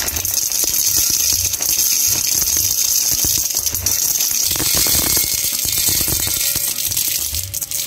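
Dry elbow macaroni pouring into a stainless steel pot: a dense, continuous rattle of hard pasta pieces striking the metal and each other.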